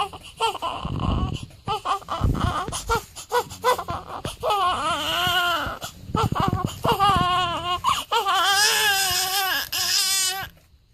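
Newborn baby crying: short fussy cries at first, building into longer wavering wails from about four seconds in, then breaking off just before the end. There are a few low thumps in the first three seconds.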